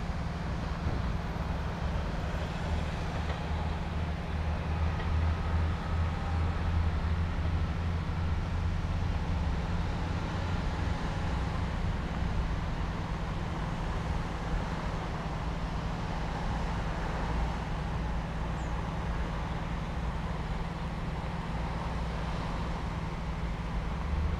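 A vehicle engine running steadily with a low hum, under outdoor background noise.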